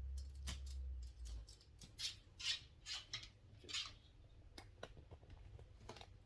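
A dog's claws clicking and pattering on an indoor floor during leash walking, with scattered soft rustles between the clicks.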